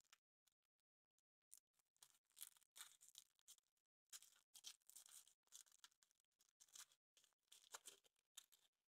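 Faint crinkling and crackling of a Kinder Surprise egg's thin foil wrapper being unwrapped by hand, in two stretches with a short pause about four seconds in.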